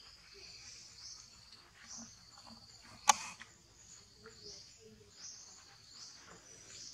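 A steady, high-pitched chorus of insects in the surrounding forest, with one sharp click about three seconds in.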